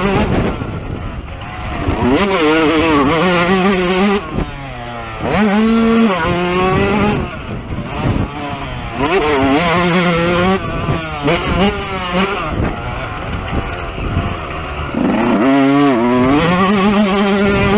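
Yamaha YZ125 single-cylinder two-stroke motocross bike ridden hard, the engine revving up through the gears in repeated rising sweeps with short drops in pitch off the throttle several times, heard from on the bike.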